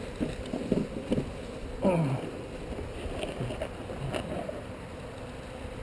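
Honeybees humming steadily around an open hive, with a series of knocks and scrapes from hive equipment being handled. A louder, falling-pitch scrape comes near two seconds in.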